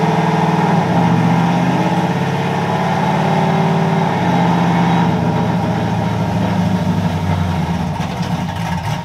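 Pickup truck engine running in gear with the rear wheels spinning off the ground, the engine note stepping down about one second and four seconds in as the transmission shifts up: a test of a freshly filled transmission, which shifts properly.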